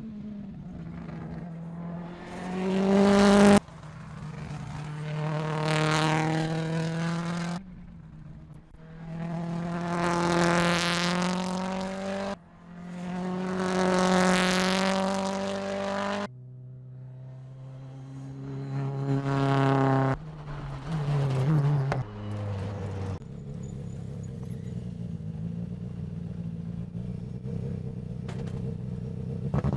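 The M-Sport Ford Puma Rally1 rally car's turbocharged 1.6-litre EcoBoost engine, heard in a series of edited high-speed runs. Each run climbs in pitch and loudness as the car revs past, then cuts off abruptly. From about two-thirds of the way through it settles into a steadier, lower running note.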